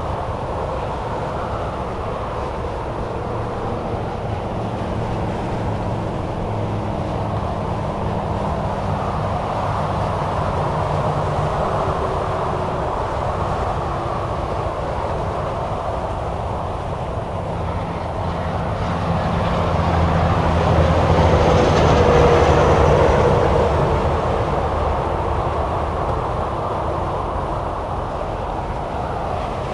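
Steady highway traffic noise: tyres and engines of cars and semi-trucks passing at speed on a multi-lane highway. One vehicle grows louder and fades again about twenty to twenty-four seconds in.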